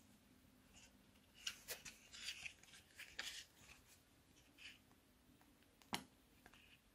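Faint crinkling and rustling of a squeezable shaving cream tube being handled and pressed, with one sharp click about six seconds in.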